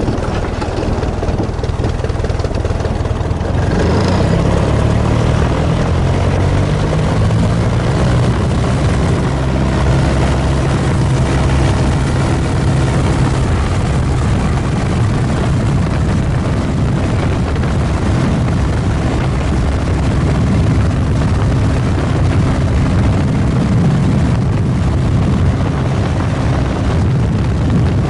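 Gipsy Major four-cylinder inverted inline engine of a DH-83 Fox Moth biplane, heard from its open cockpit. The engine rises in pitch and loudness about four seconds in as power comes up for takeoff, then runs steadily at takeoff power through the ground roll.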